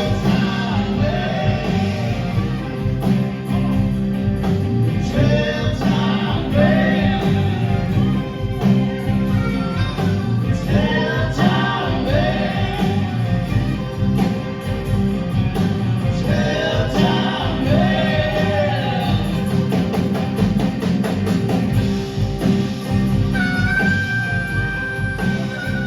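Live rock band playing, with a lead melody line bending up and down in phrases over the band and a long held high note near the end.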